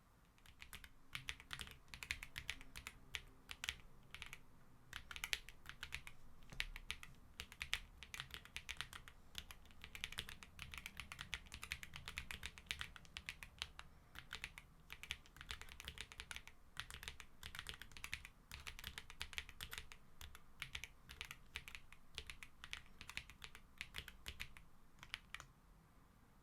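Typing on a Graystudio Space65 R3 mechanical keyboard with G-Square White Knight switches: fast, continuous keystroke clacks in runs with brief pauses, the spacebar and keycaps giving a quiet clacky tone.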